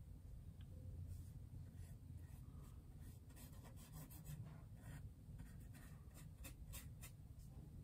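Faint scratching of a small paintbrush stroking paint onto a canvas panel: a run of short brush strokes, bunched closer together around the middle and near the end, over a low steady room hum.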